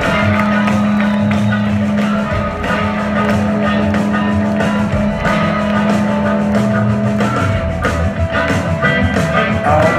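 Live rock band with electric guitars, banjo and drums playing in a concert hall. A steady low held note runs under the first seven seconds or so, then gives way to a busier rhythmic groove.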